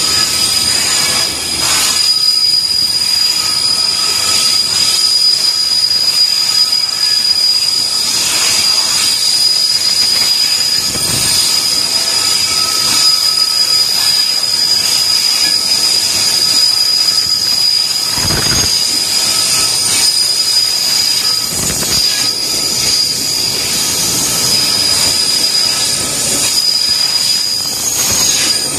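Container flatcars of a JR Freight train (Koki 104 and Koki 107 wagons) rolling steadily past at speed. The wheels give a continuous rumble and hiss, with a steady high-pitched squeal and occasional clicks over rail joints.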